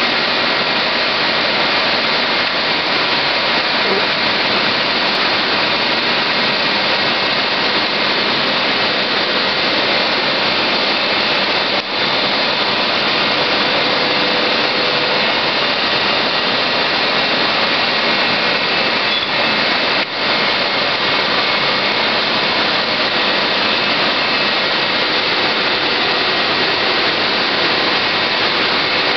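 BSL 204 band-knife foam-cutting machine running while cutting rigid foam, a loud steady hiss that dips briefly twice.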